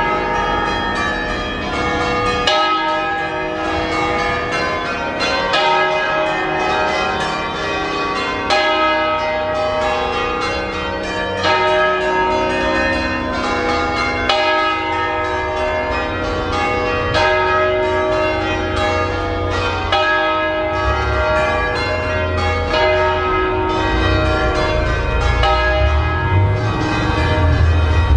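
Swinging church bells from an eight-bell peal tuned in E-flat, several ringing together in a dense, unbroken run of overlapping strokes at different pitches, each stroke ringing on under the next. A low rumble rises under the bells in the last few seconds.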